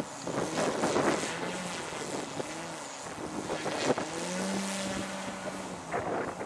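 Propeller and motor of a 2.2 m Yak 54 radio-controlled aerobatic plane in flight, a drone that rises and falls in pitch as it manoeuvres. Wind gusts buffet the microphone, loudest about one second and four seconds in.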